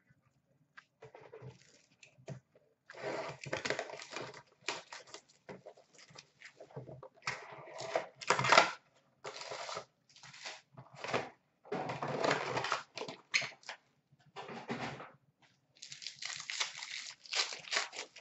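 Upper Deck hockey card box and packs being torn open by hand: irregular bursts of tearing cardboard and crinkling pack wrappers, the loudest a sharp rip about eight and a half seconds in.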